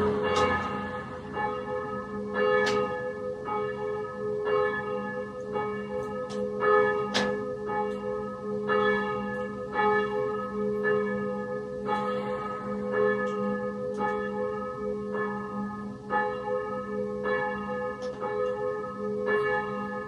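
Church bells pealing: several bells struck one after another, a stroke roughly every three-quarters of a second, their ringing tones overlapping and sustaining between strokes.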